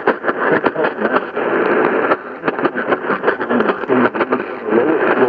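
NOAA Weather Radio tornado-warning broadcast heard through a radio receiver, with poor reception: a thin, narrow-band signal full of hiss and frequent static crackles that bury the reader's voice.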